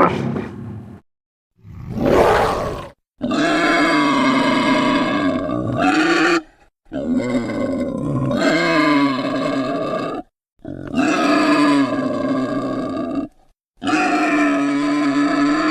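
Made-up creature sound effects for Entelodon, a prehistoric pig-like mammal: two short grunts, then four long, pitched, growling calls of about three seconds each, separated by brief silences.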